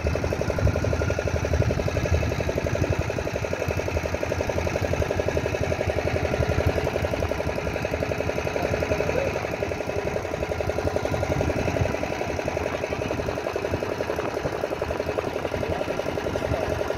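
Motorboat engine running steadily with a fast, even beat, heard from on board the boat.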